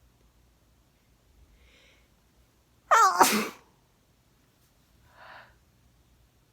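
A person with a cold sneezing once, loud and sudden, about three seconds in, the voice in the sneeze falling in pitch; a faint breath in comes before it and a faint short breath about two seconds after.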